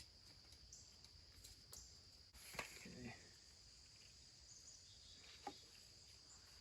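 Near silence: a faint, steady, high-pitched insect trill, with a few faint knocks.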